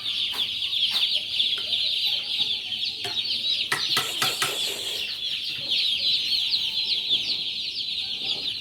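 A large flock of young chicken chicks peeping continuously, many overlapping high chirps at once. A few sharp knocks sound about four seconds in.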